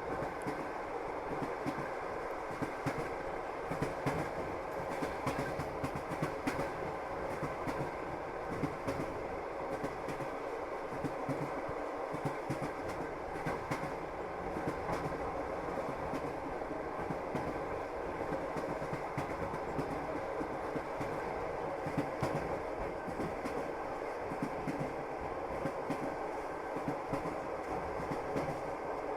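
Train wheels running on rails: a steady rolling rumble with repeated clicks as the wheels pass over rail joints.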